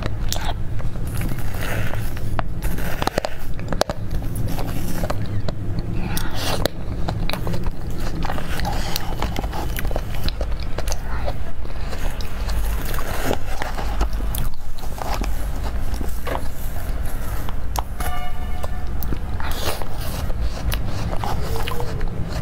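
Close-miked eating of soft mousse cake: wet mouth clicks and chewing, with the fork scraping and cutting through the cake, over a steady low hum.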